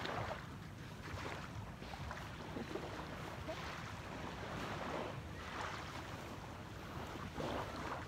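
Wind rumbling on the microphone over moving sea water, with irregular splashing swooshes every second or two.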